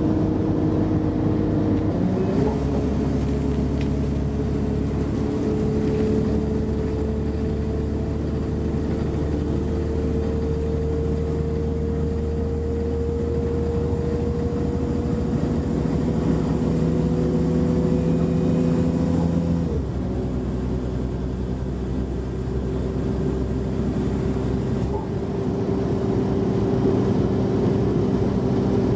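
Class 172 Turbostar diesel multiple unit heard from inside the carriage under way: the underfloor diesel engine and transmission give a steady drone and whine that steps up about two seconds in and climbs slowly as the train gathers speed. Just before twenty seconds in the note drops abruptly, then runs on steadily with the rumble of the train on the rails.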